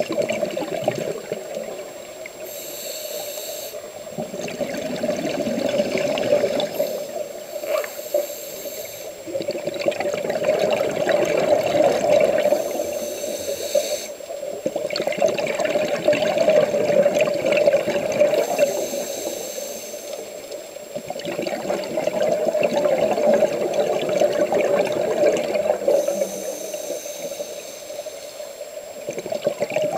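Scuba diver breathing through a regulator underwater, heard through the camera's underwater housing. A hiss on each inhale alternates with a rush of exhaled bubbles, about every five to six seconds, over a steady hum.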